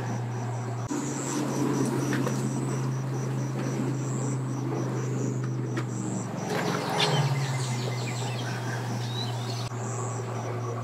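Vehicle engine idling with a steady low hum; about seven seconds in, the note shifts and drops slightly.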